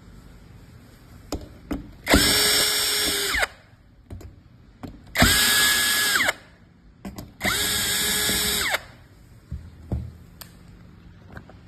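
Electric screwdriver backing out fan screws in three short runs, each spinning up with a steady whine, running about a second and winding down, with small clicks of handling between them.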